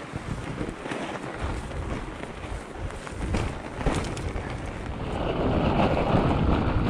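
Fat bike rolling over packed snow: a steady rumble of the fat tyres and wind buffeting the microphone, growing louder about five seconds in.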